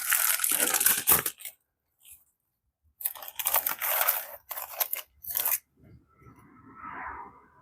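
Plastic packaging being handled and torn open, crinkling in three short bursts.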